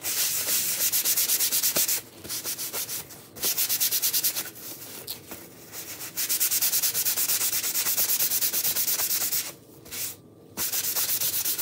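Paper towel rubbed quickly back and forth over a waxed, painted wooden riser, buffing in the wax. Fast, even strokes of about five a second come in runs broken by short pauses.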